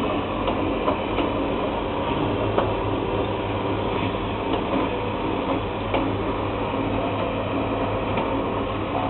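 FRD1000 continuous band sealer running: a steady motor and fan hum with a few faint clicks.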